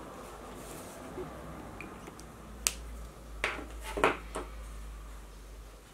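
A sharp click about two and a half seconds in, then a few quick knocks and rustles as a sheet of card is handled and moved on the cutting mat.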